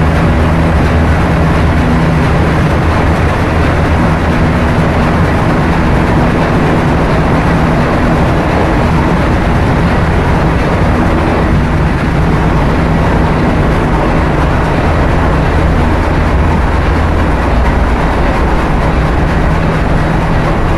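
Container ship engine room machinery running: a loud, steady drone with a low hum beneath it.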